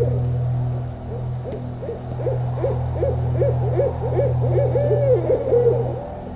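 Owl hooting: a run of short hoots that come faster and louder, ending in one longer drawn-out hoot near the end, over a steady low drone.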